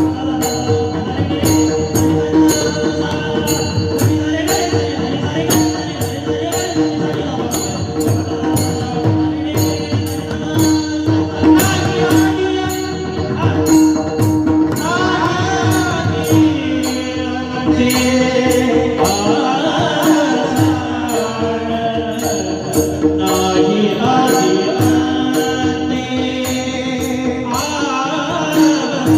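Warkari kirtan melody: men singing a devotional chal over a steady held drone, with pakhavaj drum and small hand cymbals keeping an even beat.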